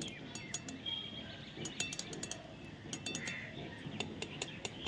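Cashews, raisins and almonds frying in hot oil in a mesh strainer dipped in a wok: a scattered crackle of small pops, with birds chirping in the background.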